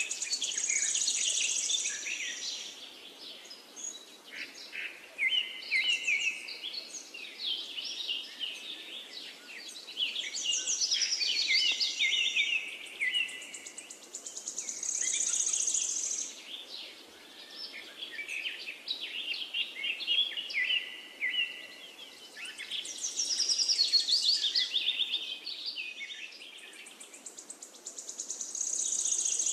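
Birdsong: high-pitched chirps and rapid trills in phrases of a second or two, repeating with short gaps between.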